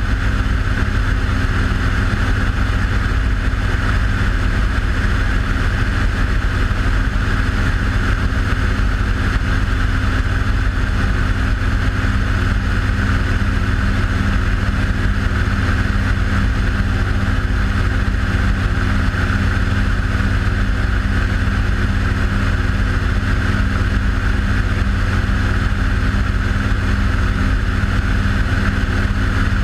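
Small aircraft's engine and propeller running steadily, a loud, even drone with a deep rumble that holds unchanged as the aircraft banks.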